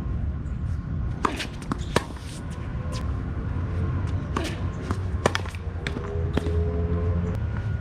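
Tennis ball being hit by rackets and bouncing on the court: sharp pops roughly a second apart, over a steady low hum.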